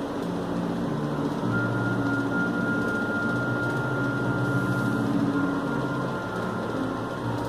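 A steady mechanical hum with shifting low drones. A thin high whine comes in about a second and a half in and fades out near the end.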